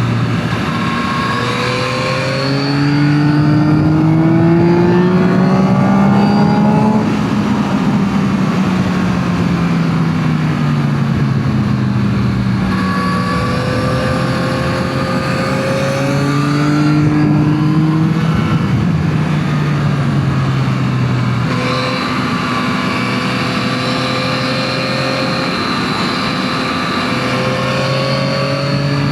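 Yamaha MT-09 SP inline-three motorcycle engine through its stock exhaust, under way. The revs climb and fall several times as the bike accelerates and eases off, with steadier stretches in between.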